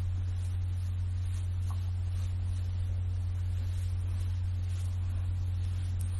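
Steady low electrical hum with faint background hiss, unchanging throughout; no voices.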